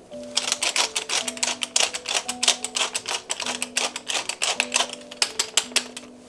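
Wooden pepper mill being twisted by hand: a fast, irregular run of crunchy grinding clicks that starts about half a second in and stops just before the end.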